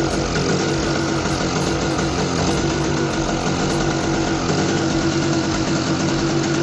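Small Tiger petrol generator's engine running steadily, having started after being primed with a little fuel poured into the carburetor through the choke opening.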